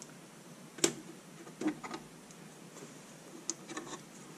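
Wooden clothespins being pulled off and set down: one sharp click about a second in, then a few fainter clicks.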